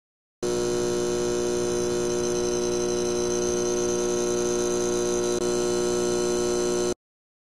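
Steady electrical hum and buzz of a neon sign, made of several fixed tones with a hiss above them, starting suddenly and cutting off suddenly after about six and a half seconds, with a brief blip near the end.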